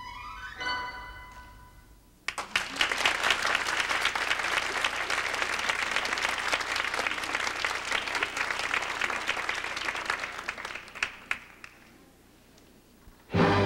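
Theatre audience applauding for about ten seconds, the clapping thinning out and dying away. Before it the last chord of the orchestral recording fades, and near the end the orchestral music of the next scene starts with a loud held brass note.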